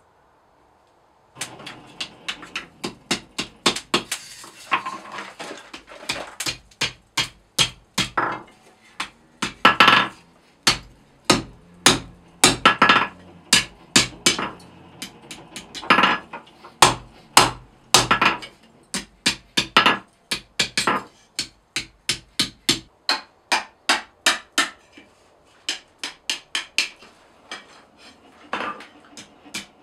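Hand hammer striking a red-hot 15 mm square mild steel bar on an anvil during forging: a steady run of sharp blows, about two to three a second, starting about a second and a half in, with a brief pause a few seconds before the end.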